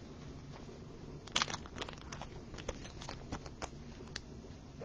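Faint crinkling of a thin plastic card sleeve as a trading card is slid into it: a cluster of light crackles about a second in, then scattered soft ticks.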